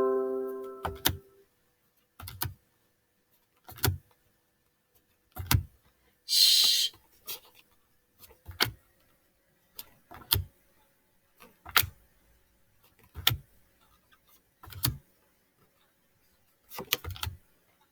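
Short soft taps, about one every second and a half, as phonics sound cards are handled and shown one after another.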